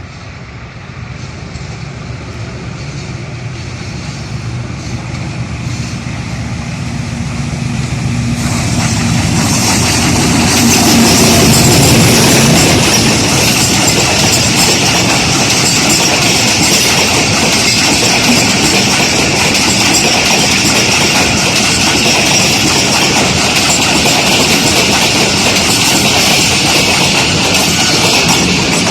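Diesel-hauled passenger train passing. The locomotive's engine hum grows louder over roughly the first ten seconds, then the coaches roll past with a loud, steady rush of wheels on rail.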